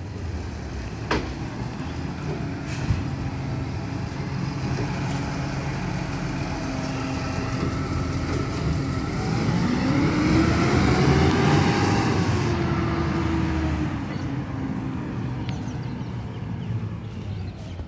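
Diesel engine of a side-loader garbage truck running as it pulls away. The engine revs up and eases back down about halfway through, then fades as the truck drives off.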